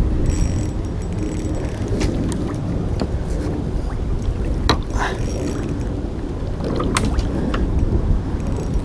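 Kayak on the water with a steady low rumble and a handful of sharp knocks and clicks from the hull and gear as a hooked fish is fought from it.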